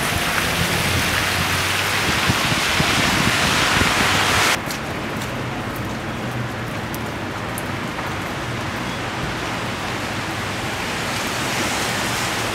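Outdoor winter storm ambience: a steady hiss of falling wet snow. About four and a half seconds in, the hiss drops abruptly in level and brightness, and a quieter city-street background follows with a low traffic hum.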